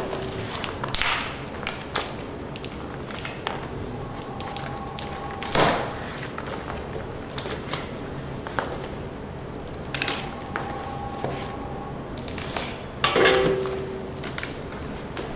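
Utility knife slicing through packing tape on a cardboard box, then the cardboard flaps being pulled open and handled: scattered rustling, scraping and clicking, with two louder scrapes about six seconds in and near the end.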